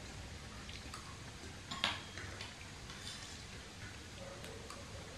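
Metal spoon clicking and scraping against a stainless steel bowl and plate while scooping food: a few light ticks with one sharper clink about two seconds in.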